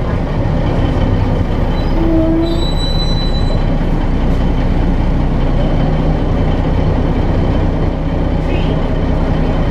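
Steady drone of an articulated city bus's engine and drivetrain while under way, heard inside the passenger cabin.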